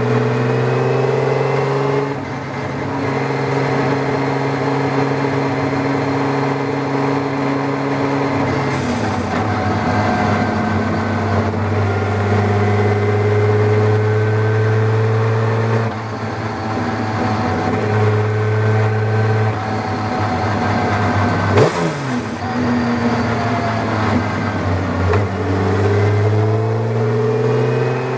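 Tojeiro Jaguar's Jaguar XK straight-six racing engine, heard from the open cockpit, running hard under load, its pitch stepping down at each gear change. About two-thirds of the way in the engine comes off and a sharp crack stands out, then it pulls up through the revs again near the end.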